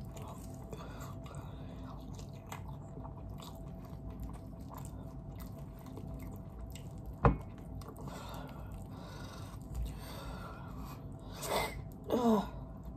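Close-up chewing of fried chicken, with many small wet mouth clicks and smacks. A single sharp knock about seven seconds in is the loudest sound, and near the end there is a breathy sniff and a short vocal sound.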